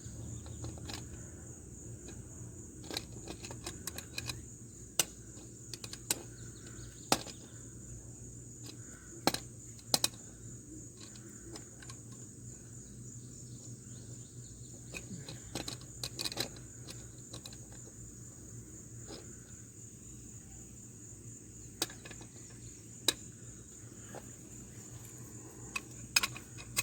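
Steady high insect chirring throughout, with about a dozen scattered sharp metal clicks and taps from a socket and torque wrench being worked on the wheel hub's axle nut.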